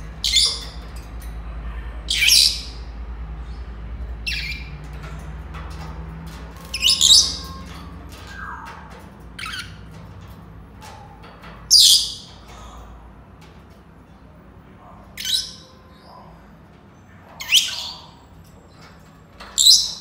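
Senegal parrots calling: about nine short, high-pitched calls, a couple of seconds apart.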